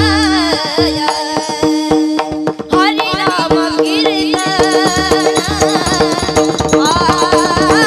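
A woman sings a Marathi abhang, a Warkari devotional song, in a bending melodic line. Small hand cymbals (tal) keep a quick even beat, with drum strokes and a steady drone underneath.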